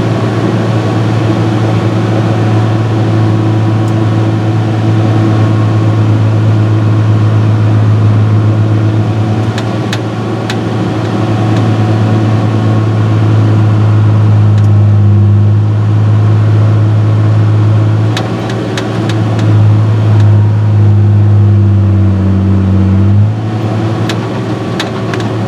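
Non-turbo John Deere 6068 diesel engine of a Fabtek 153 harvester running steadily while it warms up on a new thermostat. Its note rises and shifts a little toward the end, then settles back down suddenly, with a few sharp clicks along the way.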